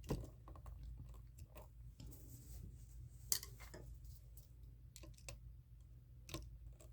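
Faint scattered clicks and scrapes of hand work at an electrical outlet: a screwdriver and the bare copper ground wire at the outlet's ground screw as it is tightened, over a low steady hum.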